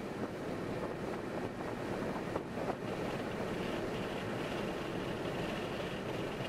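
Car driving at highway speed: steady tyre and wind noise, with two faint clicks about two and a half seconds in.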